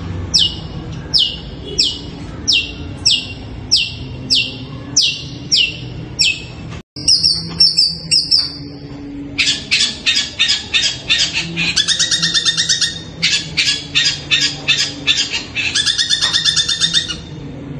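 Long-tailed shrike (cendet) calling. It gives a series of shrill notes, each falling sharply in pitch, a little under two a second. After a short break it switches to a fast, harsh chattering made of rapid pulses for the last eight seconds or so.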